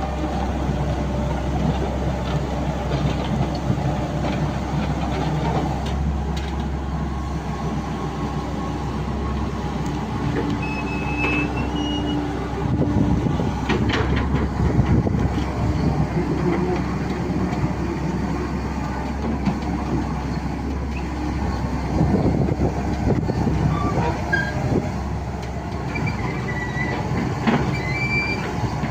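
Hitachi Zaxis 138MF excavator's diesel engine running steadily while the machine travels on its steel tracks. Track links clank irregularly, and the undercarriage gives out short high squeals now and then.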